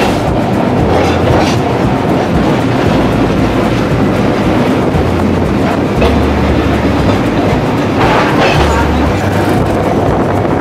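Electric tram running along its rails, heard from on board: a steady rumble and rattle of the wheels on the track, with a few sharper clacks.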